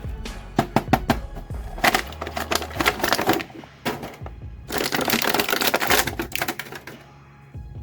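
Plastic packaging of an action figure being handled and opened: a run of sharp clicks and crackles, with a denser crinkling stretch about five seconds in.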